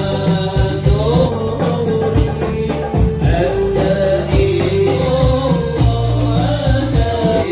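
Background music: a singing voice over pitched instruments and a steady beat.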